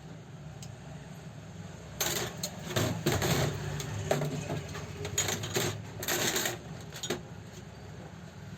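Small metal parts and tools clinking and rattling against an old overlock sewing machine during repair: a quick run of sharp clicks and clatters for about five seconds, over a low steady hum.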